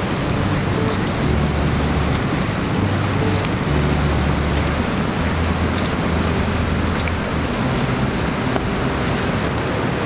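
Wood fire burning inside a Swedish torch log: a steady rush of flame with scattered small crackles and pops. Low sustained music notes run underneath.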